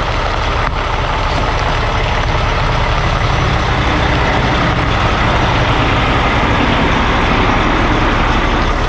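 Heavy diesel truck engine running loudly and steadily, a low rumble under a dense roar.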